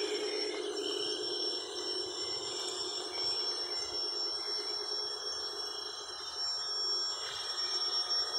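Traxxas TRX4 Sport RC crawler's electric motor and geared drivetrain whining steadily as it crawls, with a constant thin high tone above it.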